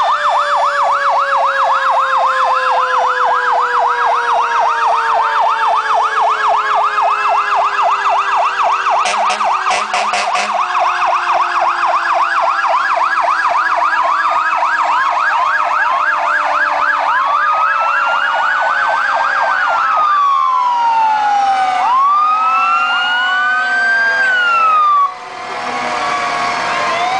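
Several passing fire engine sirens sound loudly and overlap, in a fast yelp, with a steady tone slowly falling in pitch beneath them and two short blasts about nine and ten seconds in. Toward the end the sirens change to slow rising and falling wails.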